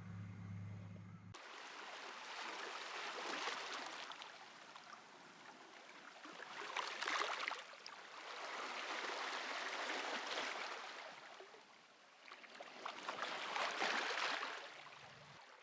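Sea waves washing onto the shore: four surges of rushing water, each swelling and fading, about every three and a half seconds. A low steady hum cuts off about a second in.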